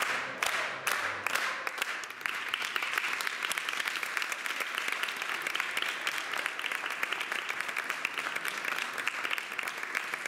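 A crowd applauding: rhythmic clapping in time, about two claps a second, over the last notes of a song, breaking into dense, steady applause about two seconds in.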